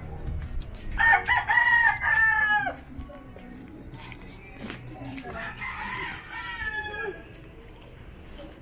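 Rooster crowing: one loud crow about a second in, held on a few notes and dropping away at the end, then a second, fainter crow around six seconds.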